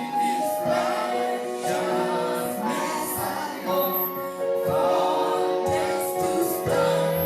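Choir singing gospel music with sustained, melodic vocal lines.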